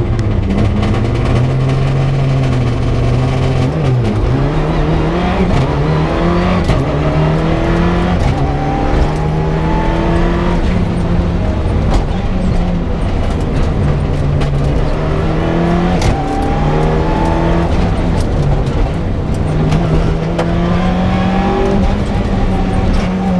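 Mitsubishi Lancer Evo 6 rally car's turbocharged four-cylinder engine, heard from inside the cabin, pulling away hard from the stage start and revving up through the gears. The pitch climbs, then drops at each shift, with frequent short sharp clicks over the engine.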